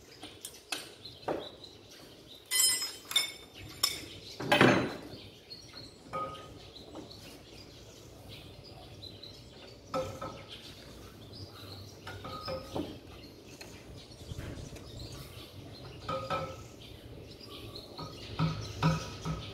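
Scattered metallic clinks and knocks of hand tools working the valve gear of a V8 diesel engine during a valve clearance adjustment, with a louder scraping knock about four and a half seconds in.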